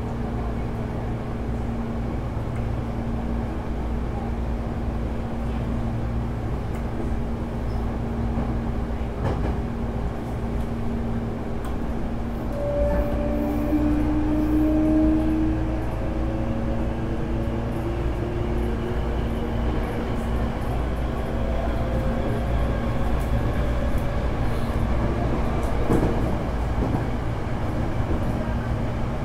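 Hankyu 8300 series electric train running, heard from inside the car: steady rumble of wheels on rail under a constant hum from the running air conditioning. From about twelve seconds in, the Toyo GTO-VVVF inverter and traction motors add a whine that slowly rises in pitch as the train powers.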